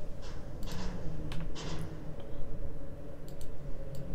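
Clicks and short scroll-wheel rattles from a computer mouse as a browser window is scrolled, over a steady low hum. A few short bursts come in the first two seconds, then sharp single clicks near the end.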